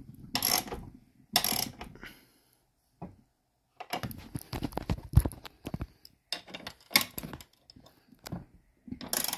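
Ratchet wrench clicking as the bolts holding a barber chair's leg rest are tightened, in several short bursts of rapid clicks with brief pauses between them.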